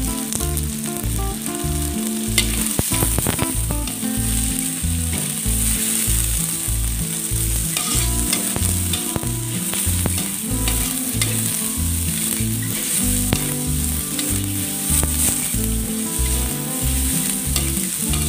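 Garlic, ginger and onion sizzling in hot oil in an aluminium wok while a metal spatula stirs them, scraping and clicking against the pan. This is the sauté stage, cooking the aromatics until fragrant.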